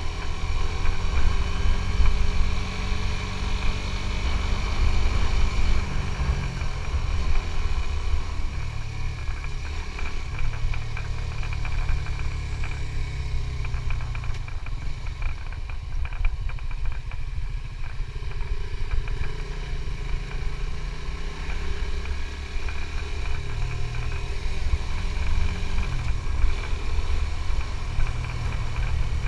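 Suzuki GSX-S150's single-cylinder four-stroke engine running under way, its pitch dropping and rising several times with throttle and gear changes, over a heavy low rumble.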